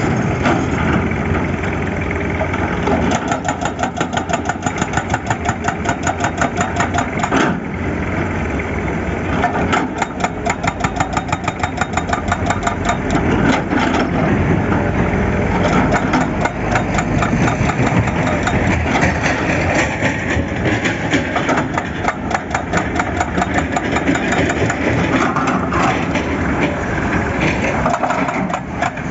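Excavator's diesel engine running at a steady level, with a rapid, even pulsing through much of the first half.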